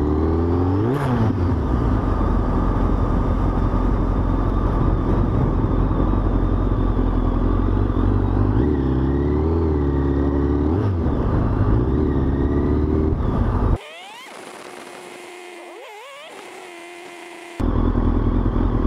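Sport motorcycle engine under way, its pitch rising and falling with the throttle, over heavy wind noise on a bike-mounted camera's microphone. About two-thirds of the way through the sound drops suddenly to a much quieter stretch of rising revs for a few seconds, then the engine and wind come back.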